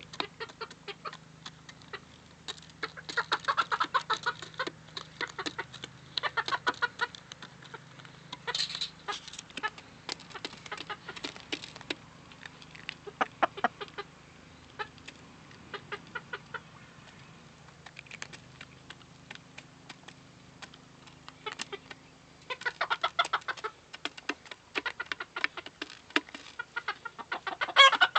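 Domestic chickens clucking in several bouts, with many short sharp clicks between and through the calls.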